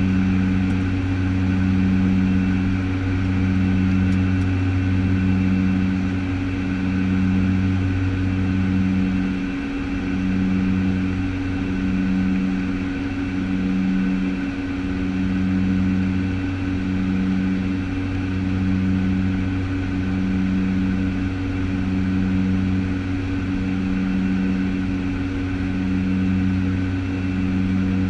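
Cockpit noise of a Piper PA-31T Cheyenne II's twin Pratt & Whitney PT6A turboprops in flight: a steady propeller drone with a throb about once a second, its deepest hum easing a little about nine seconds in.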